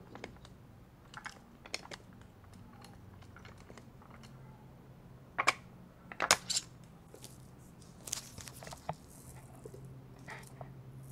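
Light clicks and taps of a hand handling a small 3D-printed robot car, its plastic shell and wired electronics, in irregular bursts with the sharpest knocks about five and a half to six and a half seconds in.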